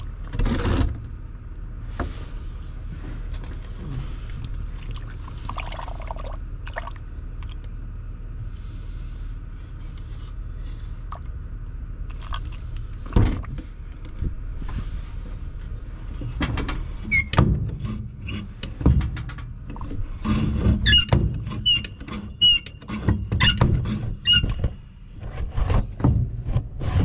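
Brake pedal of a 1955 Chevrolet 6100 truck being pumped to bleed the brakes: the pedal and its linkage squeak in short repeated squeaks, mostly in the second half, with knocks and thunks as the pedal is worked.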